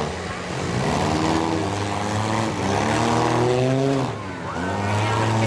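Compact demolition derby cars' engines revving hard under load, their pitch climbing and falling over a second or two at a time as the cars push against each other in the mud. A brief squeal comes about four seconds in.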